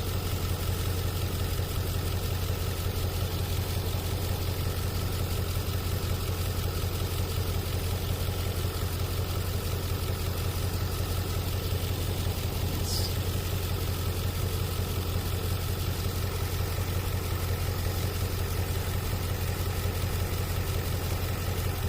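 Nissan 5.6-litre V8 idling steadily with an even hum, running smoothly on new spark plugs and coil boots that have cured a cylinder 8 misfire.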